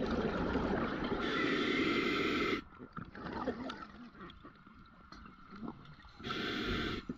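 Scuba diver's exhaled bubbles rushing from the regulator underwater: one long exhale of about two and a half seconds, a quieter stretch of small gurgles, then a shorter exhale near the end.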